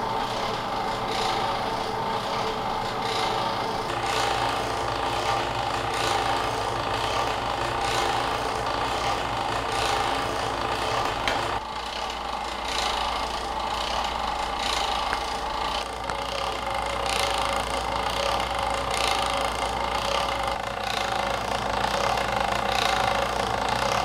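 Motor-driven rotor of a laser-projection machine running: a steady mechanical whir and hum with a regular rasping, rubbing pulse. The low hum shifts about halfway through.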